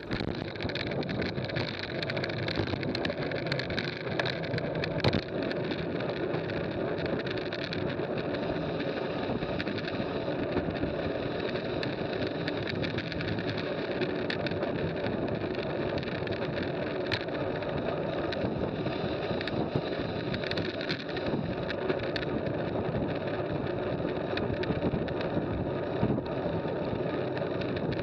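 Steady rush of wind over an action camera with mountain-bike tyres humming on asphalt, as a pack of riders goes at about 50 km/h. A few short clicks and knocks cut through now and then.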